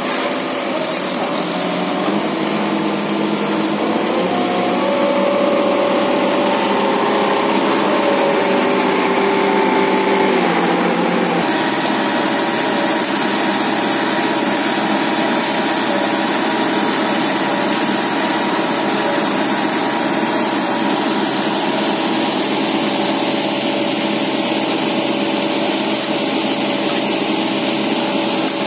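Diesel engine of an Ajax Fiori Argo 2000 self-loading concrete mixer running, its pitch shifting up and down over the first ten seconds or so, then running steadily after an abrupt change about eleven seconds in.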